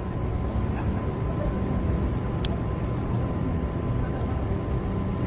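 Steady low background rumble with a faint steady hum, and a single small click about two and a half seconds in.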